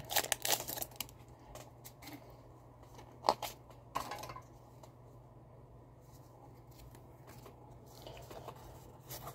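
Foil Pokémon booster pack wrapper crinkling in the hands for about the first second as the cards are drawn out of it. Two short taps follow a few seconds in, then soft rustling of the cards being handled near the end.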